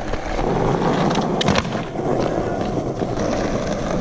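Skateboard wheels rolling over rough concrete, with a few sharp clacks of the board around one to one and a half seconds in.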